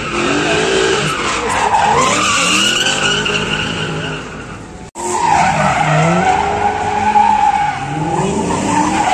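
BMW drift cars sliding with tyres screeching while the engines rev up and down repeatedly. The sound breaks off abruptly about halfway through, then another drift run carries on with the same screech and revving.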